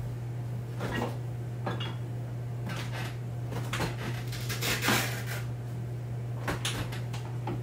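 A refrigerator door is opened and a plastic food container is handled and set onto a shelf: a series of scattered light knocks and clunks over a steady low hum.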